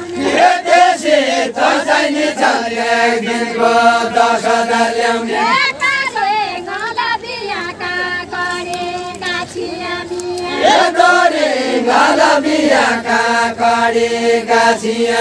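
Nepali deuda folk song sung by a group of voices together, in long held notes with melodic turns, in phrases of about five seconds each.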